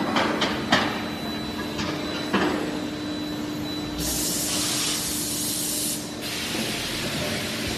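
Forging production line machinery: a steady hum with a few metallic clanks, then a loud hiss of spray or air blast about four seconds in, lasting about two seconds, followed by a softer hiss.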